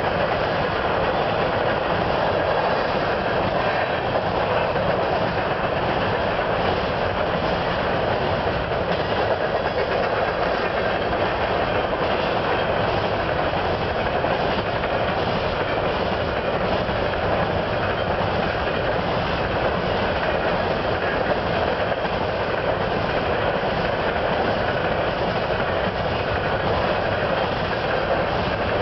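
Covered hopper cars of a BNSF grain train rolling past: a steady noise of steel wheels on rail, with the clickety-clack of the cars going by.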